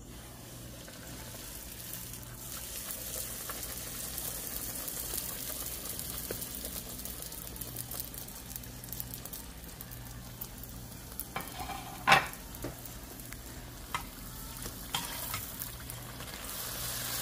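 Fry bake dough frying in hot oil in a stainless steel pan: a steady sizzle that grows over the first few seconds after the dough goes in. There is a sharp metal clink about twelve seconds in and a few lighter taps after it.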